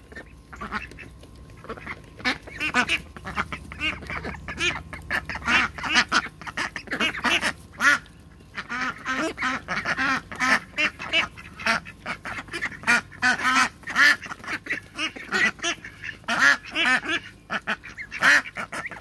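A flock of domestic ducks quacking and chattering continuously, many short calls overlapping, as they crowd around a hand offering food; a brief lull comes about eight seconds in.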